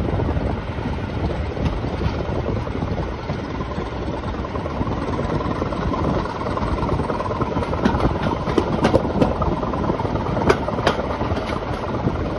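Heritage railway passenger carriage running along the track, heard from its open window: a steady rumble and rush of air, with sharp wheel clicks over rail joints from about eight seconds in.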